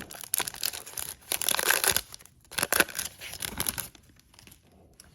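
Plastic wrapper of a trading card pack being torn open and crinkled, in several crackly bursts that stop about four seconds in.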